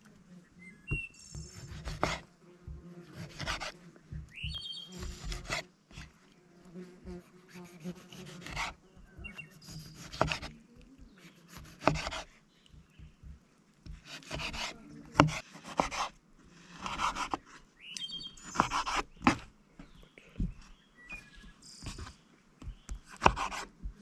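Irregular rough scraping and rubbing strokes with a few sharp knocks, and short chirps now and then.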